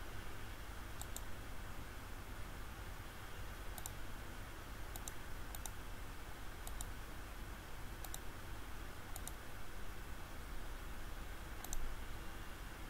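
Computer mouse clicking about eight times at irregular intervals, each click a quick double tick of the button pressing and releasing, over a steady low hum and hiss.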